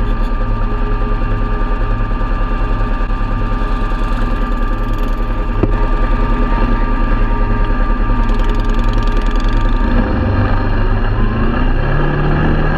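Quad bike (ATV) engine idling close by with a steady pulsing beat, then revving up about ten seconds in as the quad pulls away across the gravel.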